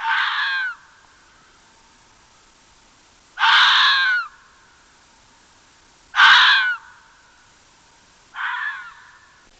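An animal calling four times, each call a loud, harsh cry lasting under a second, about two to three seconds apart. The last call is the quietest.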